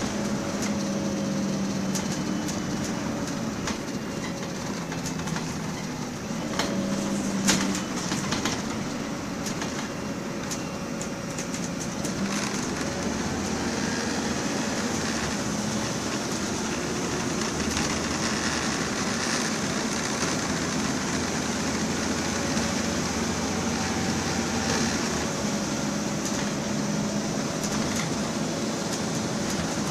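Interior sound of a MAN 18.240 Enviro 300 single-deck bus under way: its six-cylinder diesel engine running steadily, its note shifting now and then with road speed, over road noise and clicking body rattles. There is a sharp knock about seven seconds in.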